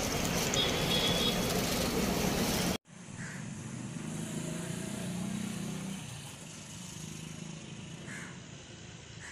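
Road traffic noise with a short high beep about half a second in, cut off sharply about three seconds in. It gives way to quieter open-air background, with a vehicle engine passing and a few faint chirps.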